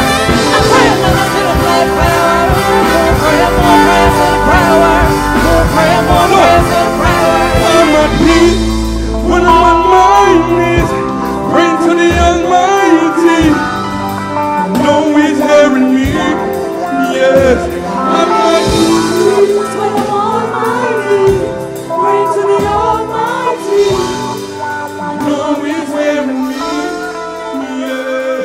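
Live gospel band playing with a singer's voice over it. The heavy bass and drums drop back about eight seconds in, and the music falls away near the end.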